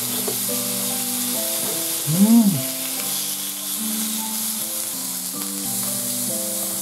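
Thin slices of meat sizzling on a hot tabletop grill plate, a steady hiss, under soft background music. About two seconds in, a short tone rises and falls.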